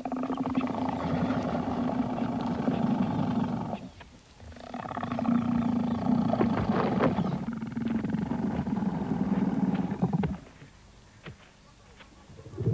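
Sleeping elephant snoring: two long snores, the first about four seconds and the second about six, with a short pause between.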